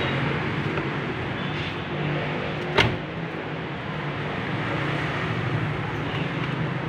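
A steady low mechanical hum over background noise, with one sharp click about three seconds in.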